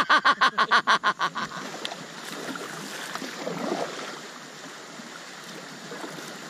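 A person laughing hard in quick, even bursts for about a second and a half, then the steady wash of river water around a drifting packraft.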